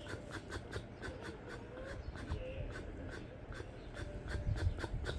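CPAP air escaping out through the open mouth of someone wearing a nose-only mask. The lips or cheeks flutter in a rapid sputter of about five to six pulses a second, like a motor that won't start.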